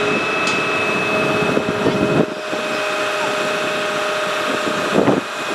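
Link-Belt 2800 excavator's engine running steadily with a steady whine over it while the machine lifts a load on its jib boom; the sound dips briefly about two seconds in, and there is a knock near the end.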